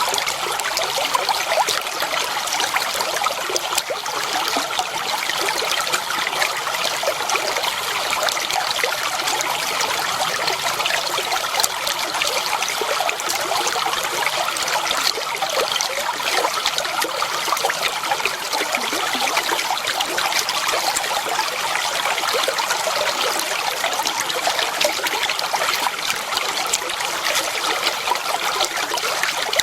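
Clear water flowing and trickling over stones in a small stream, a steady babble of many small splashes.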